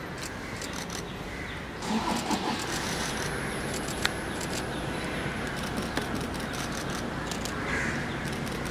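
Steady urban street noise with a hum of traffic, scattered with short sharp clicks, the loudest one about four seconds in.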